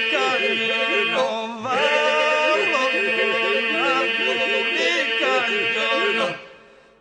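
Albanian ilahi, a Muslim devotional song, sung in the Lab polyphonic style: ornamented, wavering melodic voices over a held drone. It fades out near the end.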